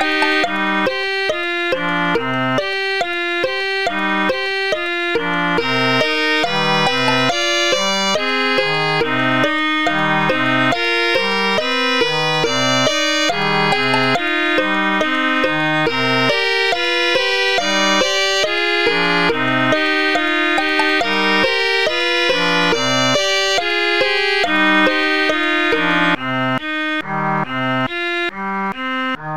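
Instrumental background music: a tune with a regular pulse of notes over a moving bass line, the sound thinning and turning more clipped near the end.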